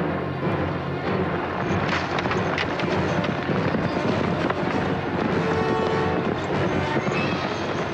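Animated-film trailer music with dense, noisy crashing sound effects over it.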